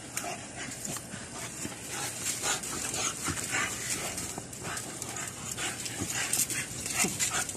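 American bully puppies play-fighting on a concrete floor: a steady run of short, irregular scuffling noises and dog sounds as they wrestle.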